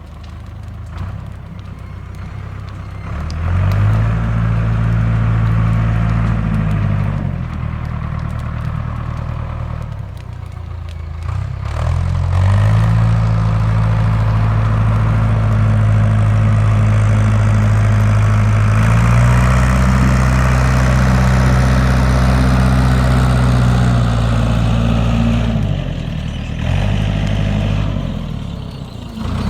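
Manitou telehandler engine revved up and held at raised speed several times, stepping back down to idle in between, as the machine is checked for a popping noise.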